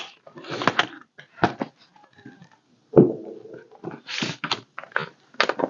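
Paper envelopes rustling and crackling as they are handled, in a string of short bursts, with a brief low-pitched sound about three seconds in.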